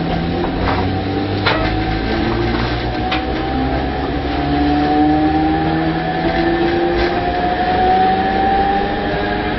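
Tobu 5050 series electric train's nose-suspended traction motors and gears whining as it gathers speed, the pitch rising steadily, heard from inside the car over a rumble of running noise. A few sharp clicks come through, the clearest about a second and a half in.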